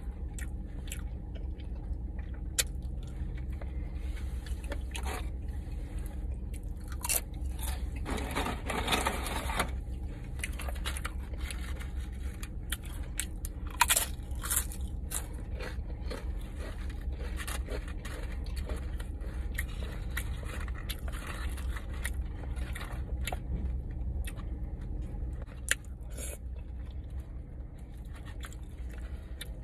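Close-miked eating: a person chewing and biting food, with scattered crunches and small mouth clicks, and one longer crunch about eight seconds in. A steady low hum sits underneath.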